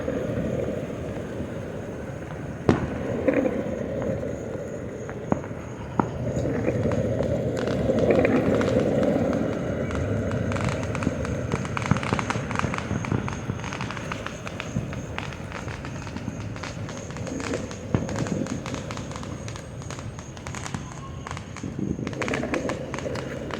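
Fireworks going off: scattered sharp bangs and pops, with thicker bursts of crackling about halfway through and again near the end.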